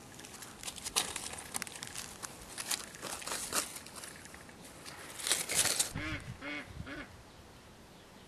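Rustling and scratching, then three short nasal yelps from an English bulldog puppy, each call rising and falling in pitch, about six seconds in.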